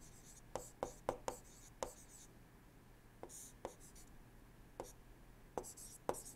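Stylus writing on a tablet screen: about ten faint light taps, with scratchy strokes between them as a word is handwritten.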